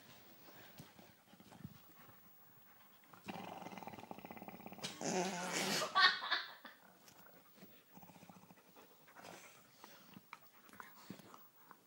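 Dog growling over a chew bone it is guarding from another dog. A low, steady growl lasts about two seconds, then rises into a louder, higher snarl.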